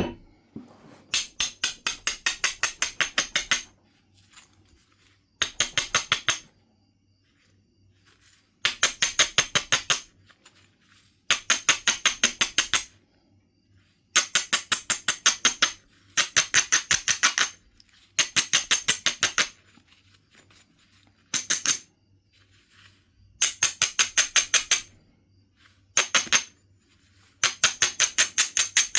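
A Knife River flint edge being abraded: an abrading stone is rubbed in quick back-and-forth strokes, about eight a second. The strokes come in about ten short runs of one to two seconds, with pauses between.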